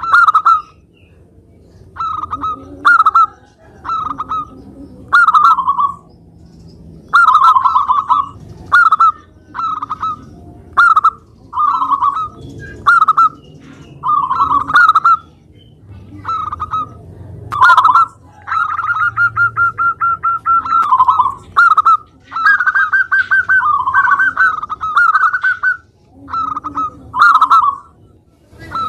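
Zebra dove (local perkutut) singing: short cooing phrases repeated every second or two, with one longer trilled phrase about two-thirds of the way through.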